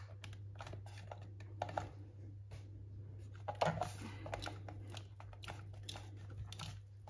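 Plastic Soma Smart Shades 3 motor housing being handled and pressed against a tiled wall: scattered light clicks and taps, with a louder cluster of knocks about three and a half seconds in, over a steady low hum.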